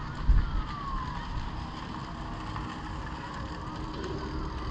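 Wind buffeting the camera microphone, a steady low rumble with a brief jolt just after the start. A faint distant call falls in pitch during the first second.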